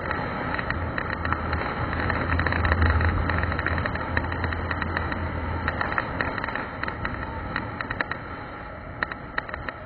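Small single-cylinder dual-sport motorcycle engine running under way, heard from the bike, with a low drone and frequent sharp rattles and clicks. About six seconds in the drone drops away and the sound gets quieter, while the rattles carry on.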